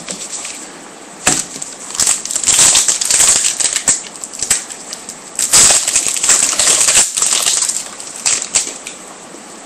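Crinkling and tearing of a foil trading-card pack wrapper as it is opened, in two long crackly stretches with a few sharp crackles in between.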